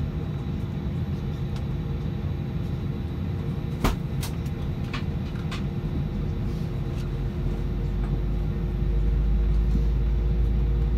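Steady low rumble inside an Airbus A320 cabin, with a sharp click about four seconds in followed by a few lighter clicks. The low rumble grows louder in the second half.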